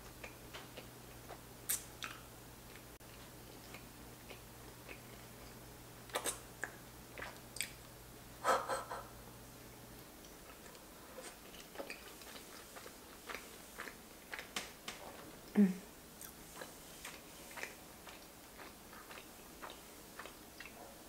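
A person chewing a mouthful of soft, sauce-coated giant fusilli pasta, with short, soft clicks and wet smacks scattered throughout.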